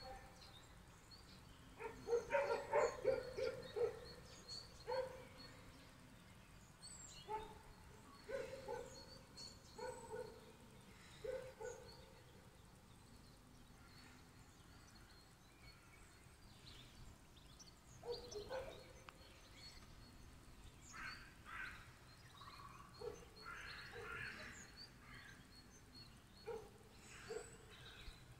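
Faint outdoor animal calls: a quick run of short, pitched calls about two seconds in, then single calls scattered every second or two, with small high bird chirps in the background.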